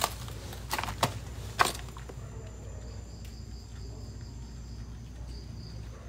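A few sharp knocks in the first two seconds, then a night insect trilling in a high, evenly pulsing chirp from about three seconds in, breaking off briefly before one last short run.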